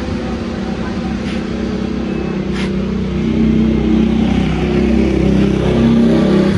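A motor vehicle engine running steadily, slowly growing louder.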